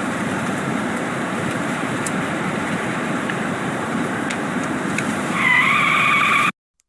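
AI-generated sound effect: a steady rushing noise, then a squeal starting about five seconds in that rises slightly and cuts off suddenly.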